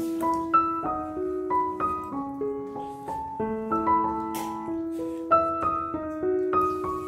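Background piano music: a gentle melody of single notes, a new one about every half second, over held lower notes.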